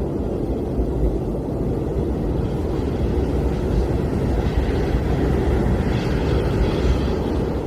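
Blizzard wind blowing steadily as a deep, rumbling noise, with a fainter higher hiss swelling up about four seconds in and easing off near the end.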